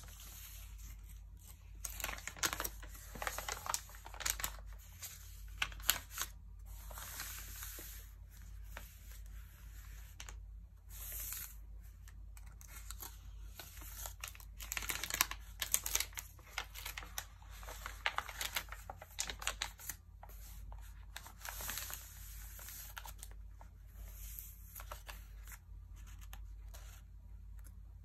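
Glossy Vogue magazine pages handled by hand: turned, smoothed and rubbed, giving irregular bursts of paper rustling and crinkling.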